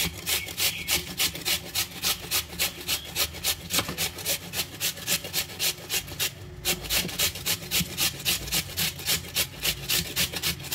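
Raw potato being rubbed up and down the coarse side of a stainless steel box grater, a steady rasping stroke about four times a second, with a short pause a little over six seconds in.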